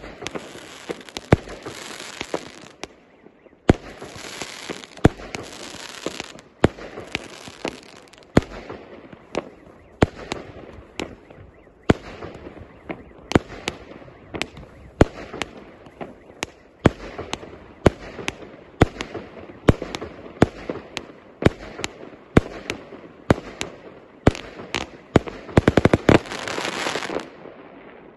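A 100-shot 1.1-inch fireworks cake firing at roughly two shots a second, with stretches of crackling from the bursting stars. Near the end the shots come in a rapid flurry and then stop as the cake finishes.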